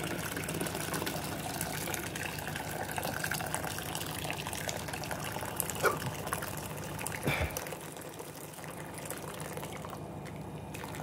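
Hot water running steadily into a jug of dissolving crystals, stopping about seven and a half seconds in, with a light clink or two near the end of the pour.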